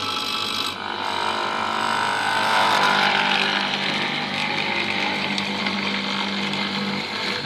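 Benchtop hollow-chisel mortiser running steadily, its motor-driven auger bit and square chisel plunging into a wooden block to cut a square mortise.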